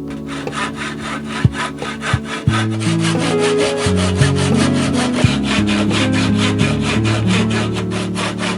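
Hand saw cutting wood in a quick, even rhythm of about five or six strokes a second, stopping just after the end.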